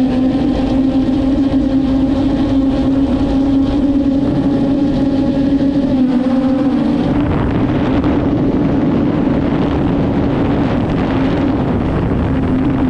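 Traxxas Aton quadcopter's motors and propellers humming steadily in flight, heard through the GoPro mounted on the drone. From about seven seconds in the hum turns rougher and noisier, then steadies again near the end.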